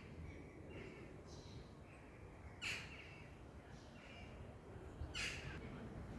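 Bird calling repeatedly: two louder calls about two and a half seconds apart, with fainter calls between, over a low steady rumble.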